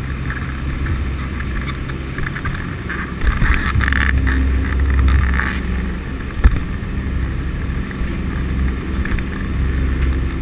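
Aircraft engines droning steadily, heard inside the cabin of a transport plane carrying paratroopers. A louder rush of noise swells from about three seconds in to about five and a half, and a single sharp knock comes about six and a half seconds in.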